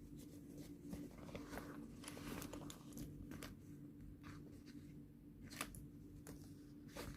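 Faint rustling and scattered small clicks of hands untying and opening a small drawstring pouch.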